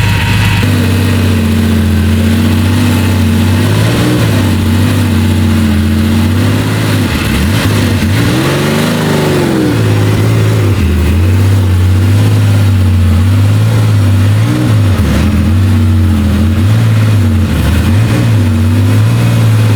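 A car engine running at a low, steady pitch, with one rev that rises and falls about eight to nine seconds in and several smaller dips and swells in engine speed after it.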